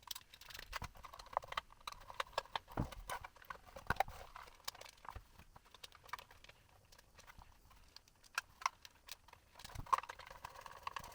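Screwdriver driving screws into a 3D-printed plastic enclosure: irregular small clicks with light scraping.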